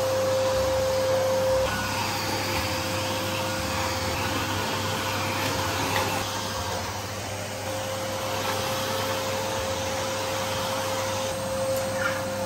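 Bagless canister vacuum cleaner running steadily, its motor giving a constant whine.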